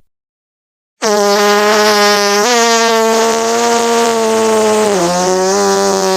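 A long, drawn-out fart sound effect: a steady buzzing tone that starts about a second in, shifts slightly in pitch a couple of times, and is still going at the end.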